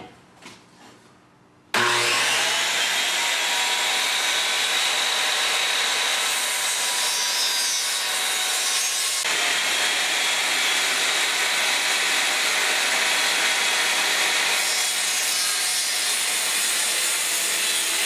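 Handheld circular saw starts about two seconds in, its whine rising briefly as the blade spins up, then runs steadily as it cuts along a board.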